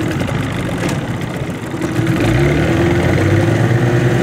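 Small outboard boat motor running, growing louder and higher-pitched about two seconds in as it speeds up.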